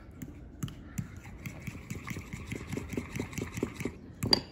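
Metal fork tapping and scraping against a ceramic bowl while stirring mashed roasted garlic into melted butter: quick light clinks, about four or five a second, with a few louder clinks near the end.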